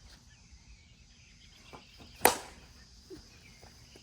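A single sharp crack about two seconds in, typical of a plastic wiffle ball bat striking the ball, over faint outdoor background.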